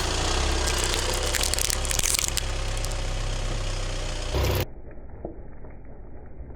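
Car engine running as a tyre rolls over and crushes something crunchy, with a burst of cracking and crackling about two seconds in. About four and a half seconds in the sound cuts off suddenly to a quieter, muffled track.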